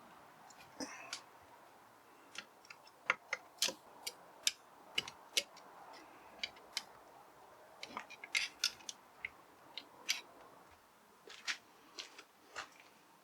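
Light metallic clicks and taps at irregular intervals, bunched in two flurries, from small hand tools and clutch parts being handled while a 50cc motorcycle's wet clutch pack is reassembled.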